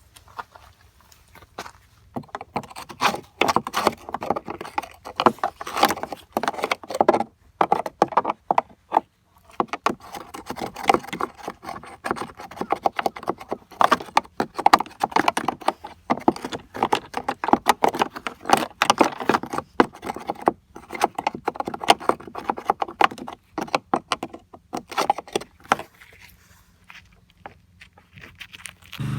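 Irregular clicking and clattering of hand work on a scooter, metal parts and tools being handled, busiest through the middle and dying away near the end.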